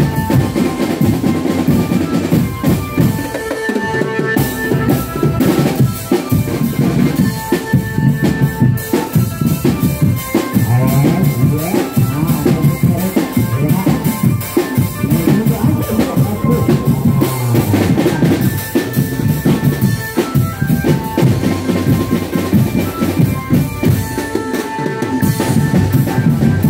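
Drum-led percussion music playing steadily, with bass drum and snare strokes and a pitched melody line above them.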